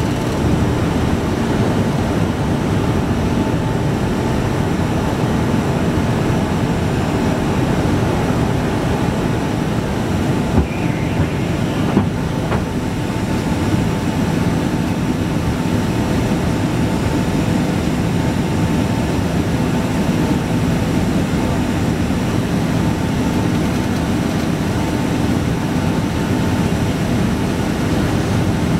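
Cabin noise of a Boeing 767-200ER climbing out just after takeoff: the jet engines at climb power and the air rushing past the fuselage make a loud, deep, even noise with a faint steady whine. Two brief small clicks come about halfway through.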